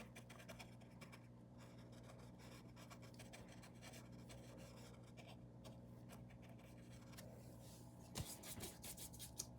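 Faint paintbrush strokes scratching paint onto the painting surface, over a steady low hum, with a few louder strokes near the end.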